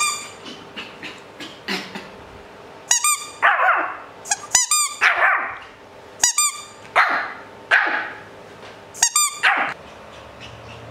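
Pomeranian puppy barking in short, high-pitched yaps mixed with sharp squeaks, in four bursts starting about three seconds in.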